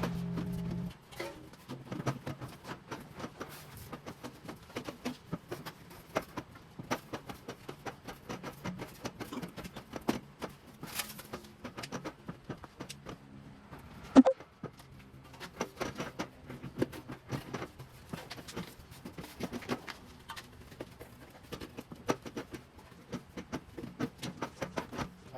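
Irregular light taps and clicks, a few a second, from working and handling sheet metal, with one sharp louder knock about fourteen seconds in. A steady machine hum cuts off about a second in.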